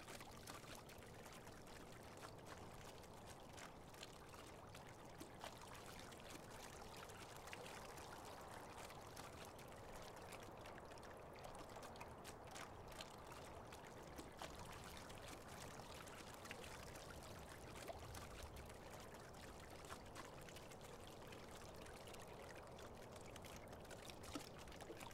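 Near silence: a faint, even hiss of background noise with a few faint ticks.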